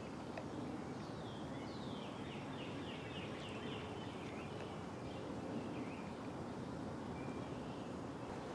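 A bird singing outdoors: a run of quick falling chirps lasting several seconds, over a faint steady background hiss.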